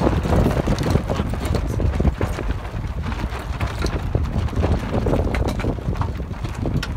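Wind buffeting the microphone, with irregular knocks and splashes of choppy water against the hull of a small sailboat under way.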